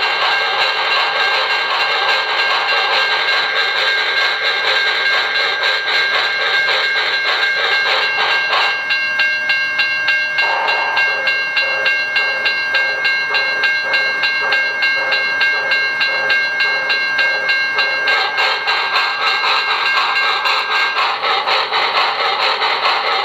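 Steam locomotive sound effects from a QSI Maxx Traxx sound panel, played through a speaker: a steady, evenly pulsing chuff. A long chime-like steam whistle sounds over it from about nine seconds in until about eighteen seconds in.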